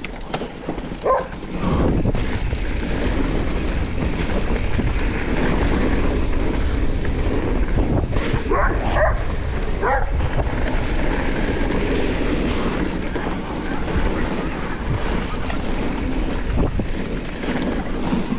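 Steady rushing noise of a fast mountain-bike descent: wind on the chest-mounted camera and the Yamaha Moro 07's tyres rolling over a dirt trail. A dog barks a few times about nine seconds in, with a shorter bark about a second in.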